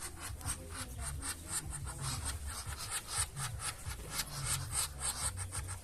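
Rapid, irregular scratchy clicks over a steady low rumble.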